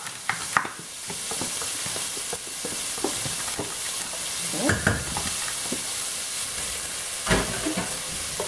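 Diced bacon, onions and kohlrabi sizzling in a hot stainless steel pot, with a steady frying hiss. A wooden spoon scrapes the bacon out of a plastic tub and stirs, knocking sharply a few times, near the start, about five seconds in and about seven seconds in.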